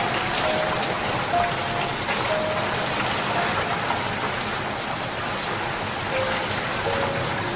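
Steady rain falling on a surface, a dense even hiss dotted with sharp individual drop ticks.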